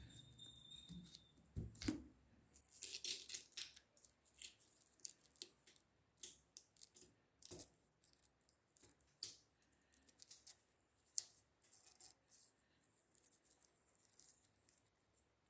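Faint, irregular ticks and light rustles of fingers handling the page edges of a thick book, with one sharper click about eleven seconds in.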